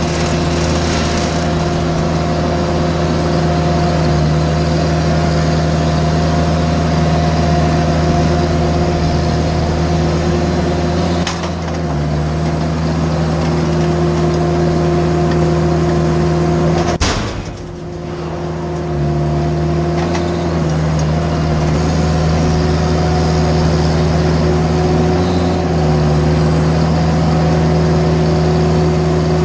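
A machine engine running steadily at high speed, its pitch stepping down and back up a few times as the load changes, with a brief dip about two-thirds of the way through.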